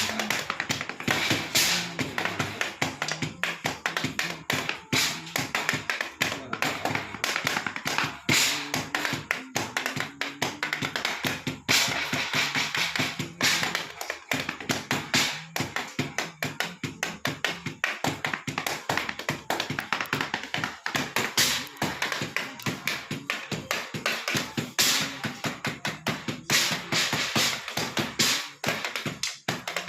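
Fast drumming: a dense, continuous run of quick stick strokes, many per second, with louder accented hits every few seconds.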